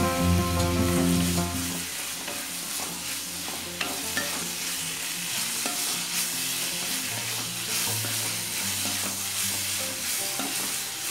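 Ivy gourd strips and onion masala sizzling in a kadai while a wooden spatula stirs and scrapes them, with frequent light knocks and scrapes against the pan. A few notes of background music fade out about two seconds in.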